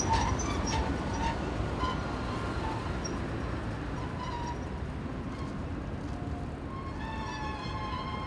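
570-series streetcar rolling on street-running rails through an intersection, its wheels clicking and squealing briefly over the first couple of seconds, then a steady rumble of the tram and street traffic that slowly fades as the car moves off. Near the end a short steady tone with overtones sounds over the traffic.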